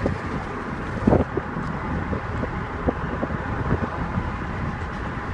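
Wind rushing and buffeting the microphone through an open window of a moving car, over steady road noise, with a stronger gust thump about a second in.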